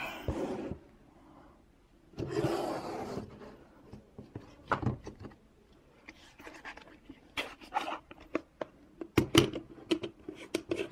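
Close handling noise of clear plastic containers: a plastic rustle, then a string of irregular light clicks and taps, with a couple of sharper knocks near the end.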